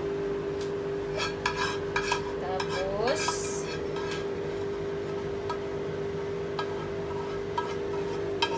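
Metal spatula scraping white sauce out of a frying pan into a foil tray of macaroni: short scrapes and clicks of spatula on pan, with one longer scrape about three seconds in, over a steady hum.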